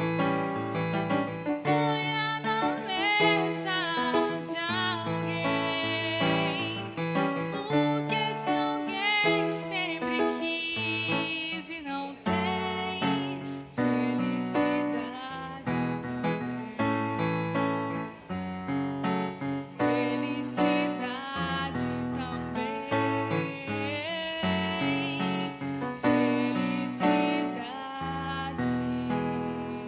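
Christmas music: a flute melody with a slight waver over keyboard accompaniment and a moving bass line, playing continuously.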